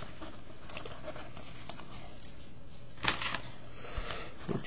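Trading cards being handled: a short rustle of cards sliding against each other about three seconds in, over a steady low hum.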